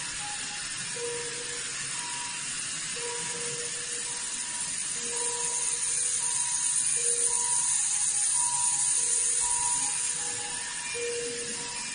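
Hospital bedside monitors sounding alarm beeps: short and longer tones at a low and a higher pitch, recurring irregularly, over a steady hiss that grows louder in the middle.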